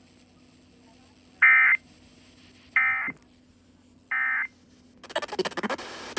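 Emergency Alert System SAME data bursts: three short, harsh buzzing warbles of digital tones about a second and a half apart, the End of Message code that closes the alert. About five seconds in, a denser, noisier sound begins.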